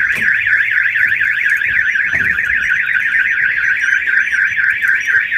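Autopage car alarm siren sounding, set off by its shock sensor when the car's window is struck: a loud, fast warble rising and falling about five times a second, steady and unbroken.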